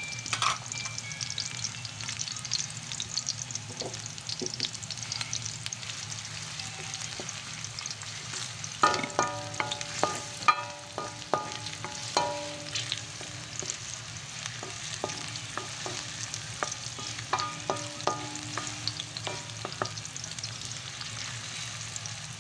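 Garlic and onion sizzling in hot oil in a wok as they are sautéed, with a spatula stirring through them. In two spells, about nine and seventeen seconds in, the spatula knocks against the wok several times and the pan rings briefly after each knock.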